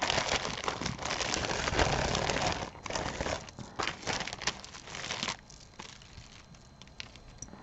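Packaging crinkling as it is handled, for about five seconds, followed by a few light clicks and taps.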